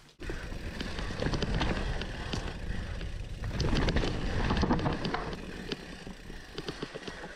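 Scott Ransom enduro mountain bike riding down a rough trail: a steady low rumble of tyres over the ground, with many sharp rattles and clicks from the bike jolting over rocks and roots.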